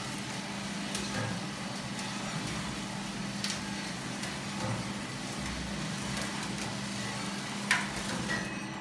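Small electric-motor coffee roasting machine running with a steady hum while the stirring arm in its cooling tray sweeps freshly roasted beans, with a few light clicks, the sharpest near the end.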